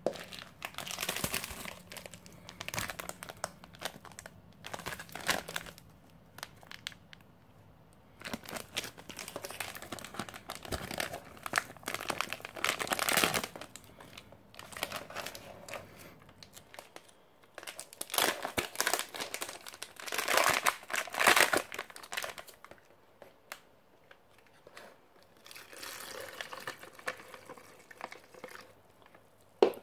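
Ration packaging crinkling and rustling as it is handled, in several bursts of a few seconds with short pauses between.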